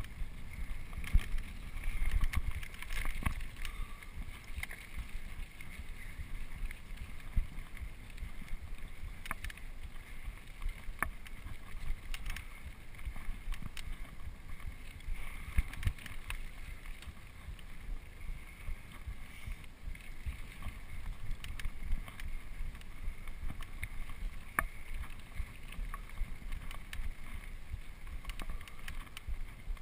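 Mountain bike ridden fast down a dirt singletrack: wind buffeting the camera's microphone over a steady low rumble of the tyres on the dirt, with frequent sharp clicks and rattles as the bike jolts over bumps.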